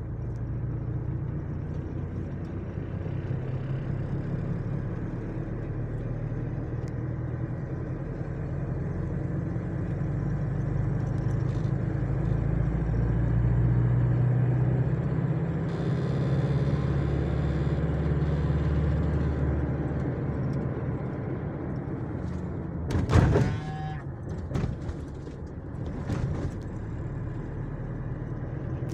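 A road vehicle running steadily, its low engine and road rumble swelling and easing. Near the end there is a brief loud noise.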